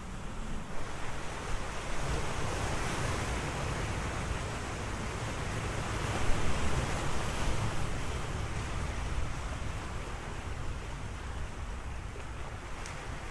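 Sea surf washing onto a shore, with a low wind rumble beneath; the surf swells loudest about halfway through.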